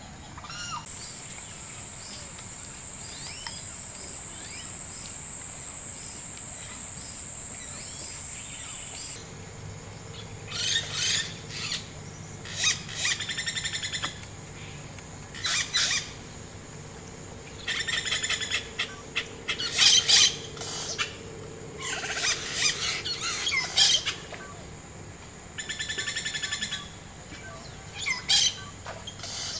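Rainforest ambience: a steady high-pitched insect drone, joined after an abrupt change about a third of the way in by repeated bird calls every second or two.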